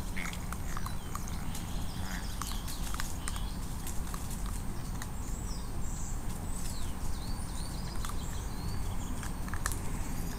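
Coyote pups moving about on dry fallen leaves: scattered crunches and clicks over a steady low rumble, with short high chirping calls in the second half.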